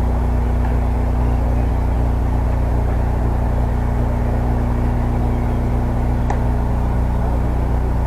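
Steady low mechanical hum, with a faint click about six seconds in.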